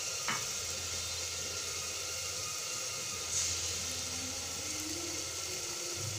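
Spice masala frying in oil in a steel pot, a steady sizzling hiss, with a short tap about a third of a second in.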